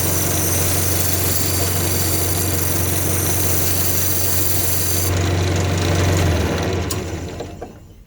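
Wood lathe running with a steady hum while a turning tool cuts a spinning walnut blank. The cutting stops about five seconds in, and near the end the lathe is switched off and winds down.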